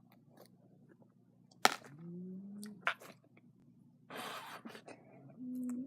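Bead-filled slime being squeezed and poked by hand: sharp clicks, a short rising squeak, and a crackling squish about four seconds in, with a brief pitched squeak near the end.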